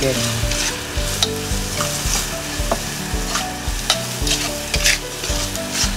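Onion, garlic and chicken bouillon cube sizzling in hot oil in a metal wok, sautéing. A metal spatula stirs them, scraping and clinking against the pan about twice a second.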